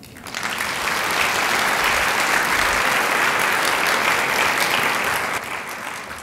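Audience applauding: the clapping builds over the first second, holds steady, then begins to fade near the end.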